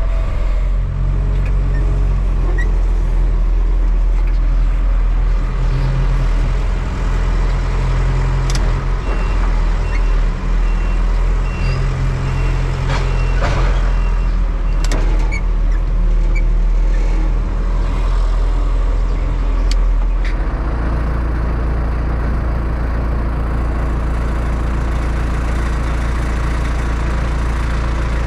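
Tractor engine running steadily, with a few sharp knocks in the middle and a change to a lower, more even engine sound about twenty seconds in.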